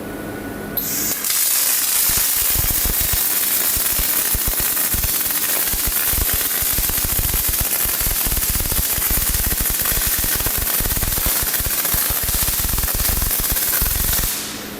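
Arc welding by a Borunte welding robot: the arc strikes about a second in and crackles steadily, then cuts off near the end as the weld finishes.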